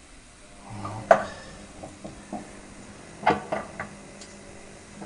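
Hotpoint Aquarius WMF520P washing machine's drum turning over a steady motor hum, with metallic knocks and clanks at uneven intervals: a loud one about a second in, lighter ones after, and a cluster of three about three seconds in. The knocking is the sign of a faulty drum spider.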